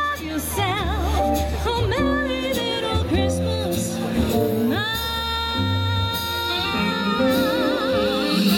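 A woman singing live into a handheld microphone over a musical backing, with vibrato. About five seconds in she slides up onto a long held note and sustains it to the end.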